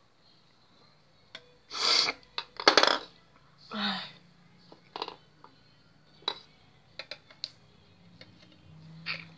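Make-up items being handled: three short rustling bursts early on, then scattered small sharp clicks of plastic mascara tubes and caps as one mascara is put down and another is picked up and opened.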